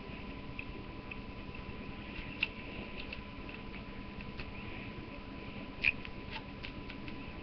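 Knife carving into a wooden staff: faint scrapes and ticks, with two sharper clicks about two and a half and six seconds in, over a steady hiss.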